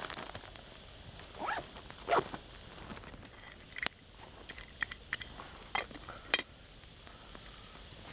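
Wood campfire crackling, with a few sharp pops and light clinks and scrapes of a metal pot being handled at the fire as food is stirred.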